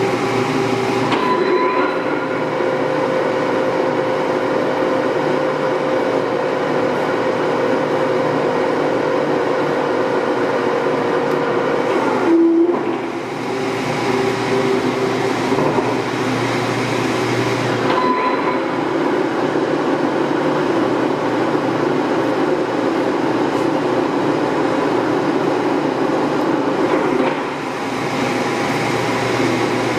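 Warner & Swasey No. 4A turret lathe running with its two-speed motor in the high range: a steady machine hum with gear whine whose tones change several times, most sharply about twelve seconds in.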